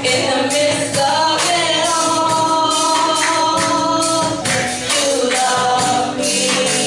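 Gospel worship song: a group of voices singing with instrumental accompaniment and a tambourine shaking along.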